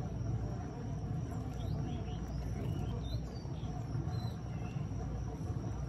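Outdoor ambience: a steady low rumble, with a few faint, short high chirps from birds in the middle.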